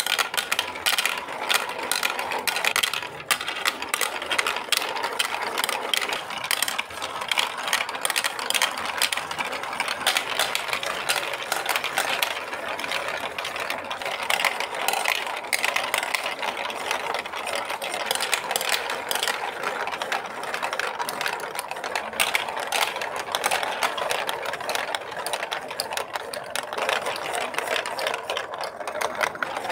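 Plastic balls rolling and clattering down a block-built plastic marble run's chutes, curves and funnel: a steady rattle made of many rapid clicks and knocks.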